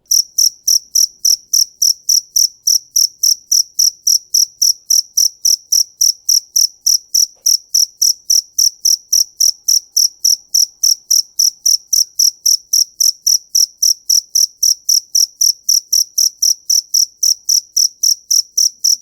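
A cricket chirping: short, high-pitched chirps repeated evenly at about four a second.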